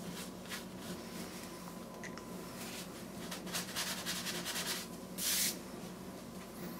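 Folded paper tissue rubbing and dabbing on watercolour paper, lifting out a painted tree branch: soft scrubbing strokes, a quick run of them in the middle, and a louder rustle about five seconds in.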